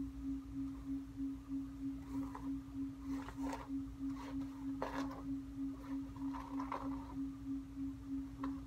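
A steady, pulsing hum on one pitch, with a few faint rustles of hair being gathered up by hand.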